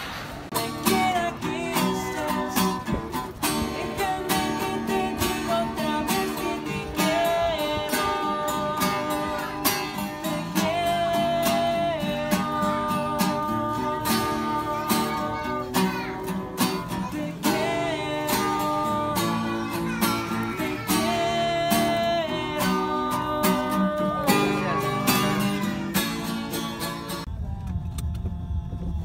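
Two acoustic guitars strummed with a man singing a melody over them. The music cuts off suddenly near the end, giving way to a low rumble.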